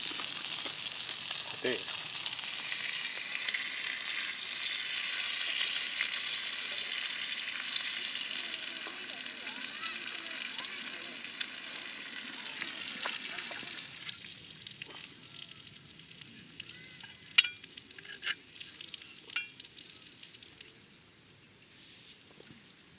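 Meat sizzling in a cast-iron skillet, a steady hiss that dies down about two-thirds of the way through. After that come a few sharp clicks, the loudest one about three-quarters of the way in.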